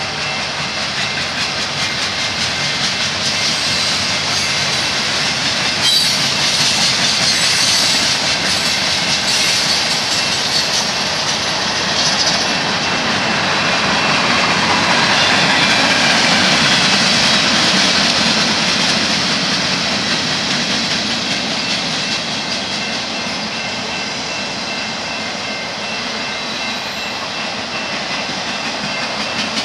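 Freight train cars rolling past close by, their steel wheels running on the rails in a steady noise that grows a little louder about halfway through.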